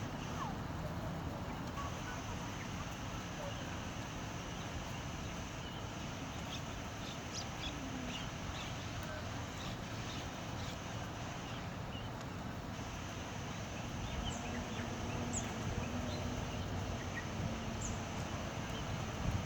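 Steady outdoor background noise with scattered faint, short, high chirps of small birds.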